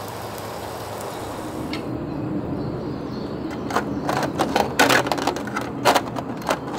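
Meat sizzling on a disposable charcoal grill's aluminium grill plate for the first couple of seconds. Then metal tongs scrape and tap against the empty aluminium grill plate, a quick run of sharp clicks and scrapes.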